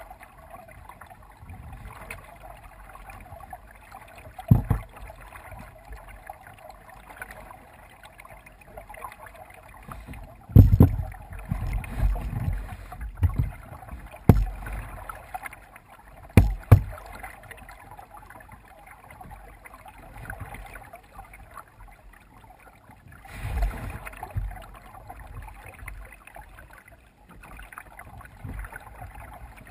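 Kayak being paddled on calm water: a steady soft wash of water with several dull, low thumps, the loudest a cluster in the middle.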